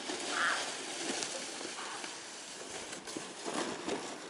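Snow crunching and scraping, uneven, with a few sharper crunches near the end.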